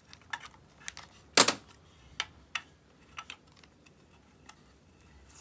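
Scattered light clicks and taps from handling the Proxxon TA 300 angle stop, an aluminium bracket with a plastic protractor guide. The loudest is a sharp tap about a second and a half in.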